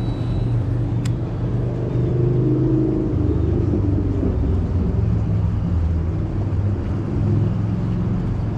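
A low, steady engine drone whose pitch shifts about three seconds in, with one sharp click about a second in.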